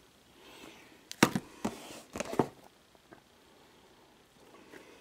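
Cardboard trading-card boxes being handled: a few short light knocks and rustles between about one and two and a half seconds in, then quiet.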